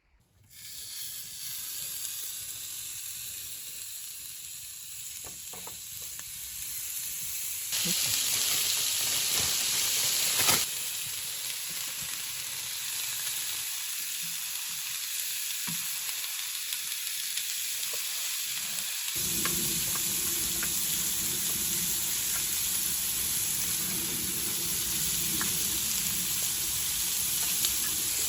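Food frying in a pan, a steady sizzle with scattered small pops. It grows louder for a couple of seconds about a third of the way in, and a low steady hum joins it past the midpoint.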